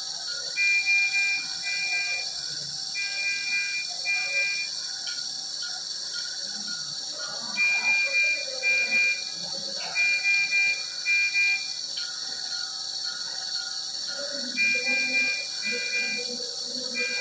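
Medical monitor alarm sounding high-pitched electronic beeps in pairs, each group followed by a pause of a few seconds, over a steady hiss.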